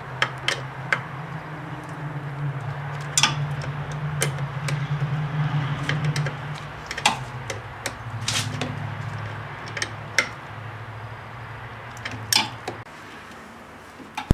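A wrench tightening brake-line flare nuts into a master cylinder, giving scattered clicks and knocks as it works and shifts on the fittings. A steady low hum runs underneath and stops near the end.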